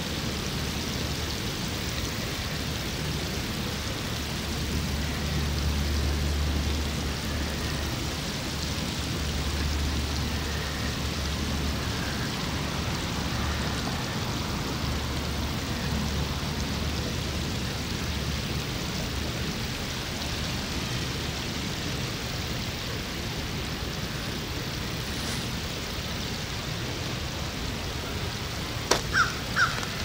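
Steady outdoor background noise, a hiss with a low rumble that swells between about five and twelve seconds in, with a few faint, short bird calls over it.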